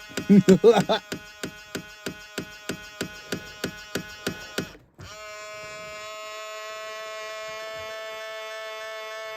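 2000 Ford Explorer power side mirror motor making a rapid run of clicks, about four or five a second, for nearly five seconds. It then changes abruptly to a steady electric buzz that holds to the end.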